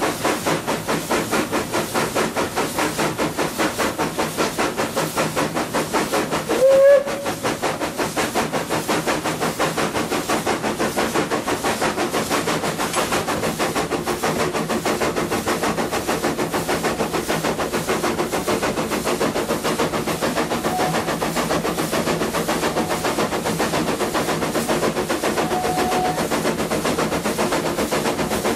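Narrow-gauge steam locomotive ÖBB 298.52 working, its exhaust beating in rapid, even chuffs about five a second. About seven seconds in there is one short blast of its steam whistle.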